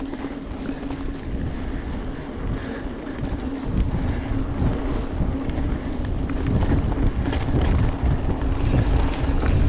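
A mountain bike rolling along dirt singletrack, with wind rumbling on the microphone and a steady hum over the tyre noise. The wind rumble grows louder about four seconds in.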